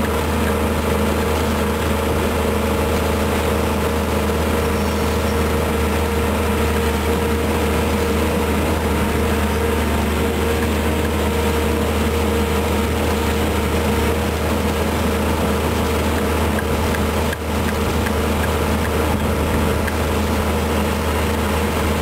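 Volvo EC210B excavator's diesel engine running steadily close up, a constant low drone with a steady hum above it.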